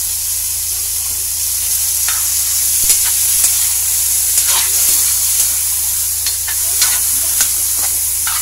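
Chicken pieces sizzling in hot oil in a metal wok, with a steady hiss. From about two seconds in, a metal spatula scrapes and clinks against the wok several times as the chicken is stirred.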